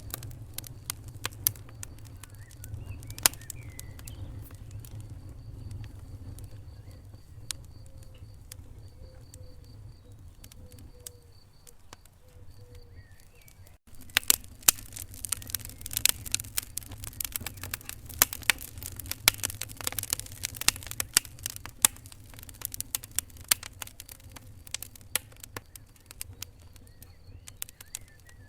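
Wood fire crackling in a fireplace: irregular sharp pops and snaps over a low steady rumble of flame. The sound cuts out for an instant about fourteen seconds in, and the popping is denser and louder after it.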